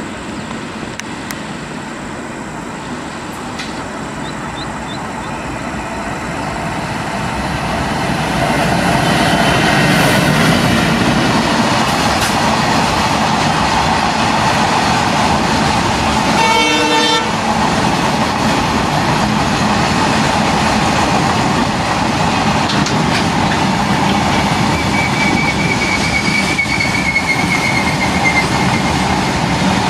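An Indian Railways train running past close by: the rumble of wheels on the rails builds over the first several seconds and then stays loud. Midway through, the locomotive gives one short horn toot of about a second.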